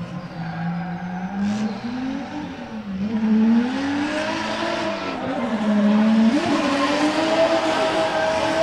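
Drift car's engine revving up and down as it slides sideways through the corners, its pitch rising and falling again and again, with tyre squeal growing louder from about halfway through.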